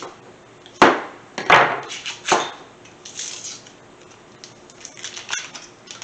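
Kitchen handling of a block of butter as it is cut open and unwrapped: three sharp knocks on a hard surface starting about a second in, then lighter crinkling and small clicks.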